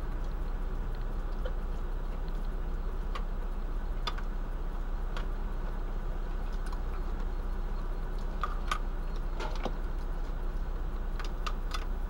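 Cutlery clicking and scraping against a frying pan as food is eaten from it: scattered light clicks, more of them in the last few seconds, over a steady low background rumble.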